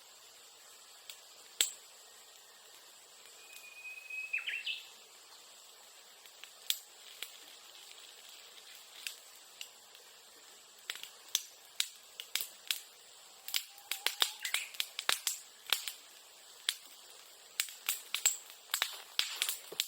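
Dry bamboo grass catching fire and crackling with sharp snaps: only a few at first, then growing quick and dense from about eleven seconds in as the flames take hold. A bird gives one short whistled call about four seconds in.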